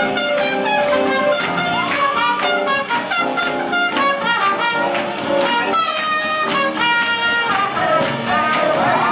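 Swing jazz with horns carrying the melody over a steady beat, and a few sliding horn notes near the end.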